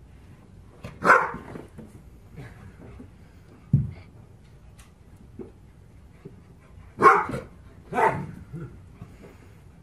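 A dog barks three times: once about a second in, then twice close together near the end. A short low thud comes between them.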